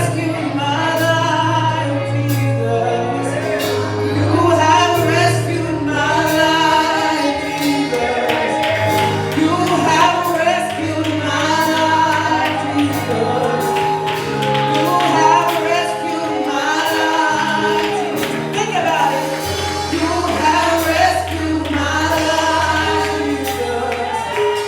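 Gospel music: voices singing over held bass notes and a steady drum beat.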